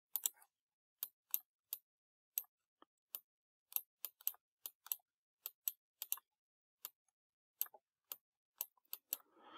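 Sharp, irregular clicks, about two or three a second, from a pointing device as a word is handwritten stroke by stroke on a computer screen.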